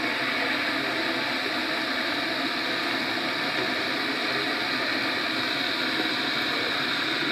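Steady, even hiss with no words and no distinct events.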